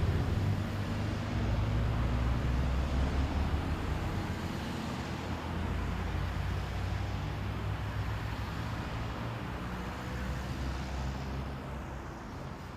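Road traffic: motor vehicles driving past, a steady engine and tyre noise that slowly fades.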